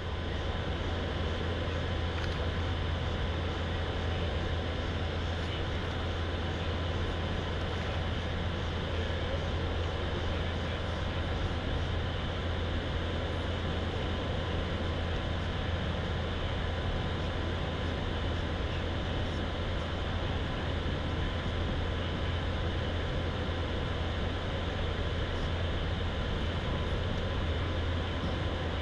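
A motor running steadily with a low hum, a faint constant whine and a rushing noise, unchanging throughout.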